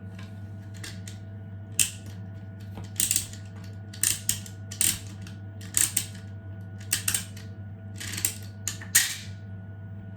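Hand-winding the spring of a 3D-printed plastic wind-up toy: about a dozen short bursts of ratcheting clicks, one twist roughly every second, over a steady low hum.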